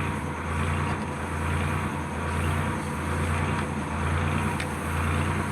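Steady low mechanical hum with an even hiss over it, pulsing slightly about once a second.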